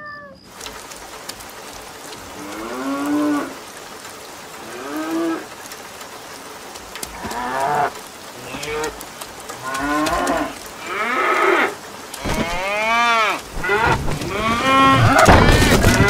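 Cows mooing over and over, the calls a second or two apart at first, then overlapping in a chorus of several cows near the end, over a steady hiss of rain.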